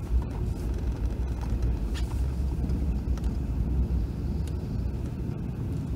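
A 2020 Jeep Gladiator driving on a snow-covered dirt trail, heard from inside the cab: a steady low rumble of engine and tyres, with a few faint ticks.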